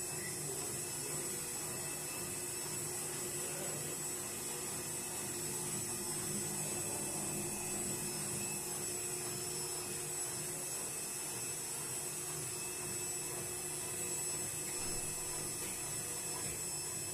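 IFB washing machine running its cycle, its motor and drum turning with a steady hum and a thin high-pitched whine.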